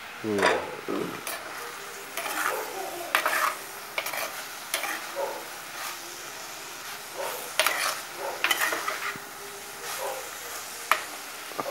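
Steel spoon stirring and scraping sliced beetroot in a clay cooking pot, with irregular scrapes and knocks over a steady sizzle of the frying curry.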